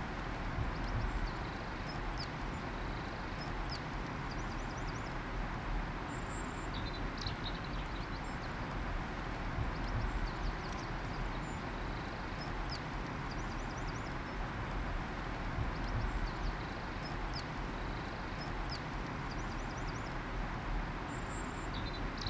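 Outdoor woodland ambience: a steady rushing background with small birds chirping and giving short rapid trills every few seconds.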